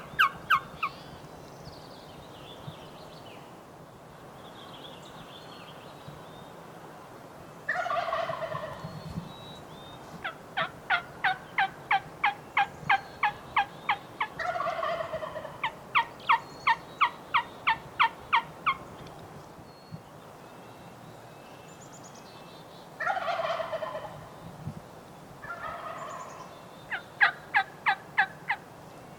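A wild turkey gobbler gobbling three times, each gobble a rapid rattling burst about a second long. Between the gobbles come long series of evenly spaced turkey yelps, about three a second.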